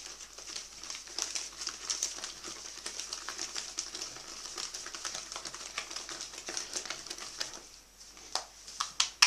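Wire whisk beating thick waffle batter in a bowl by hand, working out the lumps: a fast, steady clatter of clicks as the wires strike the bowl. It thins out around eight seconds in, then come a few louder separate knocks near the end.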